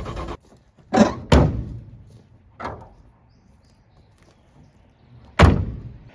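An engine running stops abruptly, then four separate heavy thunks sound, the loudest about five seconds in.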